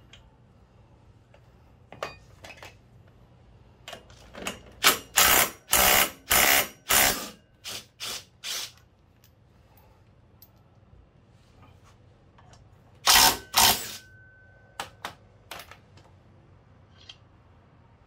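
Cordless power driver run in short bursts: about eight quick spins in a row, then two more a few seconds later. Scattered metallic clicks of bolts and tools being handled come before and after.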